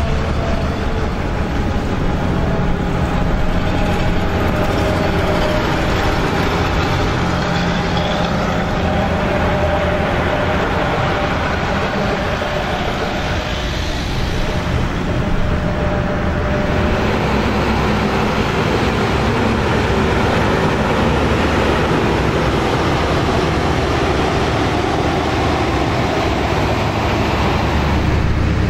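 A convoy of New Holland combine harvesters driving along a road, their diesel engines running steadily under a haze of mechanical and tyre noise.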